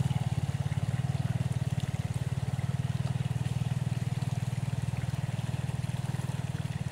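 Small engine running steadily at low revs, a rapid, even throb.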